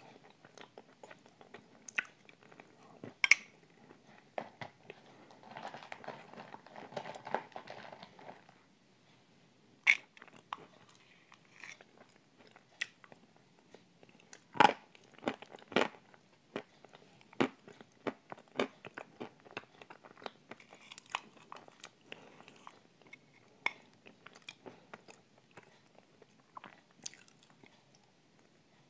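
Close-up eating of a thick, creamy dessert with a spoon: scattered sharp crunches and clicks throughout, with a denser stretch of chewing about five to eight seconds in.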